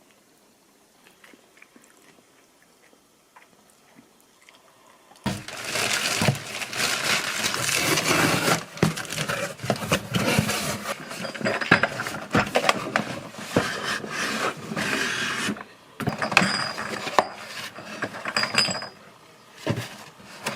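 Dishes and utensils clinking and clattering, with a dense rush of noise. It starts suddenly about five seconds in, stops briefly near the end, then comes back.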